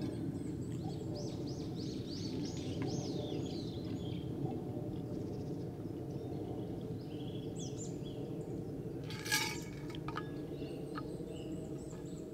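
Birds calling over a steady low rushing outdoor noise. A quick run of repeated high chirps comes a couple of seconds in, with more calls later and a brief sharp sound about three quarters of the way through.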